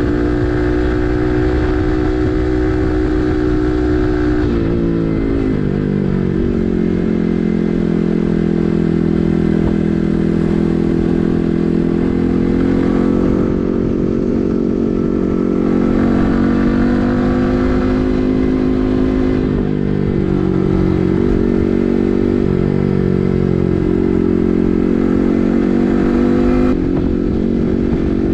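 Yamaha MT15's single-cylinder engine running through an SC Project full-system exhaust while riding. The engine note holds fairly steady, drops and shifts about five seconds in, and dips again a couple of times in the second half as the revs change. A low wind rumble runs underneath.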